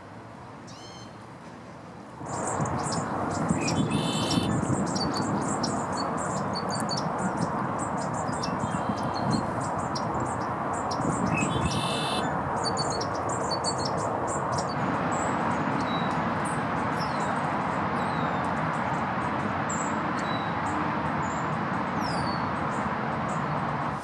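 A male red-winged blackbird singing its buzzy song twice, among many short high chirps, over a steady, loud rush of background noise that starts about two seconds in. Before that, a quieter stretch holds a few faint thin bird calls.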